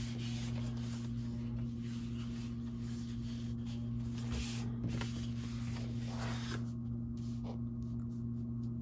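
Large sheets of cardstock sliding and rustling against each other and the table as they are shuffled by hand, over a steady low hum.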